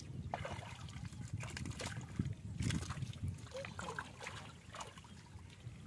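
Hands splashing and sloshing in shallow muddy water, with irregular wet slaps and squelches of mud as people grope for fish by hand.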